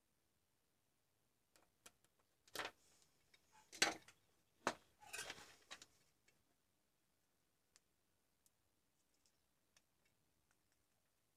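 Clicks, knocks and a short rustle of multimeter test probes and a small circuit board with its cable being handled on a workbench, followed by a few faint ticks.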